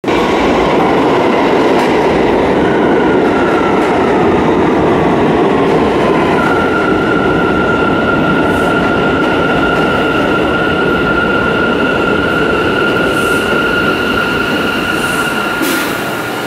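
NYC subway train, an R179, pulling into the station and slowing along the platform, with the steady rumble of steel wheels on the rails. A whine falls slightly in pitch, then holds as a steady high whine from about six seconds in, and cuts off near the end as the train slows to a stop.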